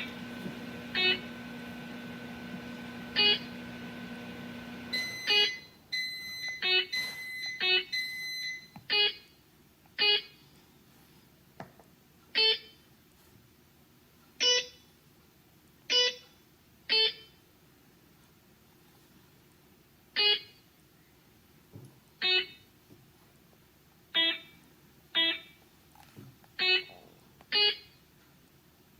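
Background music of single plucked notes, one every second or two, like a slow picked melody. A steady low hum underneath stops abruptly about five seconds in.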